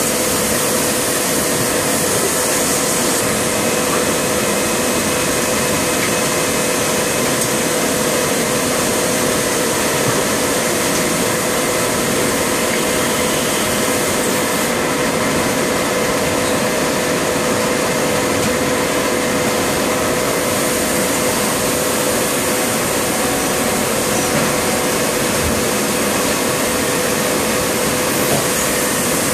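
Steady hum and airy hiss of an automatic transfer molding machine running, with a steady mid-pitched tone and no distinct knocks.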